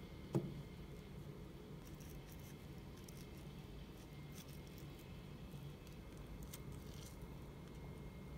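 Quiet tabletop food preparation: a table knife scraping a white spread onto a slice of crusty bread, with a light knock about half a second in, then faint scrapes and clicks as an avocado is handled and cut open.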